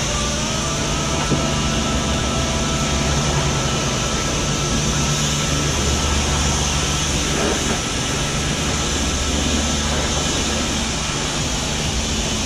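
High-pressure car-wash lance spraying water onto a kayak: a steady hiss of spray with a constant low hum underneath.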